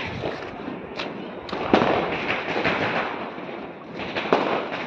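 Firecrackers going off: a dense, continuous crackling and popping, with louder bangs a little under two seconds in and again near the end.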